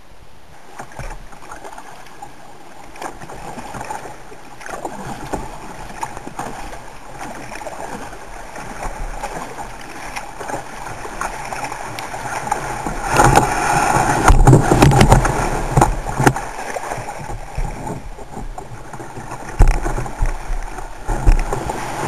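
Ocean water rushing and splashing. It swells to a loud surge about thirteen seconds in, with sharp splashes near the end.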